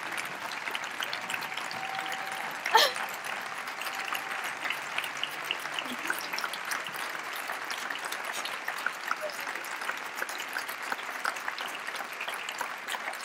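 Applause from a large audience, many hands clapping steadily through the whole stretch, with one sharp knock about three seconds in.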